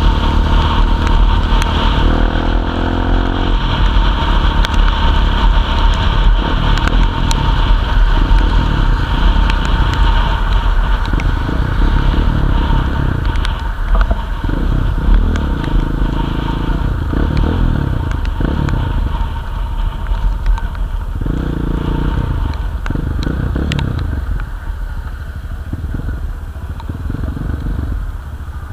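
Motorcycle being ridden on a rain-wet road: the engine runs and revs up through the gears several times over a heavy low wind rumble and the hiss of the tyres. It settles a little quieter near the end.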